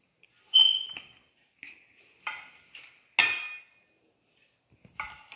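A measuring cup clinking against a glass mixing bowl as semolina is tipped in: about six sharp, ringing clinks, the loudest about half a second and three seconds in.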